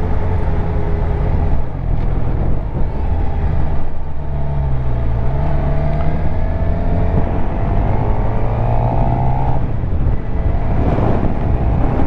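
Suzuki GSX-R750's inline-four engine running under way. Its pitch dips about five seconds in, then climbs steadily for several seconds as the bike accelerates, over heavy wind rush on the rider's microphone. There is a brief whoosh near the end.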